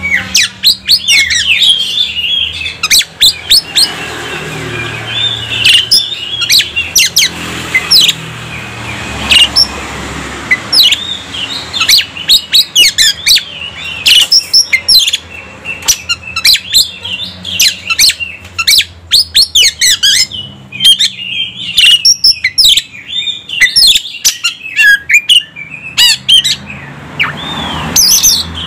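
Oriental magpie-robin (kacer) singing a loud, fast, unbroken song of varied whistles, chirps and sharp clicky notes with quick rising and falling slurs.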